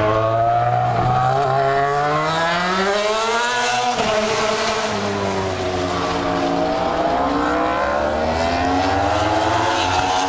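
MotoGP race bikes' 800cc four-stroke engines running hard, the pitch climbing steadily for about four seconds as they accelerate, dropping suddenly, then climbing again near the end.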